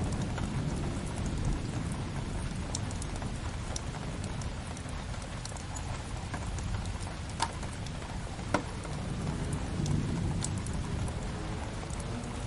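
Steady rain layered with a crackling fireplace fire, a low rumble underneath. Two sharp pops from the fire stand out a little past the middle.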